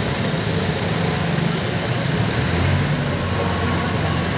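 A motor vehicle engine idling, a steady low rumble.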